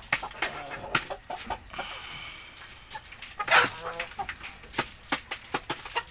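Chickens clucking, with many short sharp sounds throughout, a higher held call a little under two seconds in and a loud squawk about three and a half seconds in.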